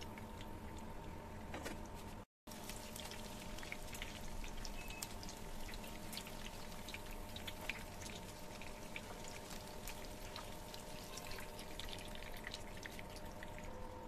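Chicken leg quarter shallow-frying in hot oil in a pan, sizzling with a steady crackle of small spattering pops, over a steady low hum.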